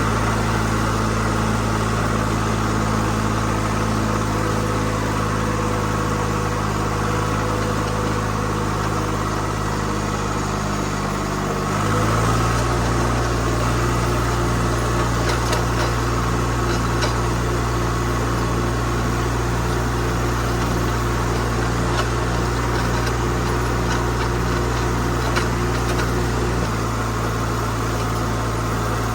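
Tractor engine running steadily while working hay. About twelve seconds in, the engine note changes and a regular repeating beat joins it; near the end the note shifts back.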